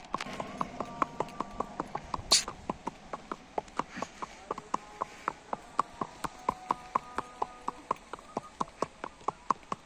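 A horse's hooves clip-clopping on a paved road in a steady rhythm of about four hoofbeats a second. One sharp crack, the loudest sound, about two seconds in.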